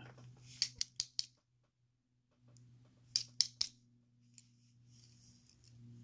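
Quick clusters of small metallic clicks, about a second in and again about three seconds in: tiny pins and a spring being tapped out of the brass body of a disassembled Master padlock and landing on a wooden pin tray.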